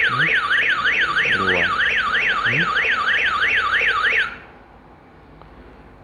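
Nexxt wireless alarm hub's built-in siren sounding a fast warbling wail, about four rising-and-falling sweeps a second, triggered by a window contact sensor opening while the system is armed. It cuts off suddenly about four seconds in, when the alarm is disarmed.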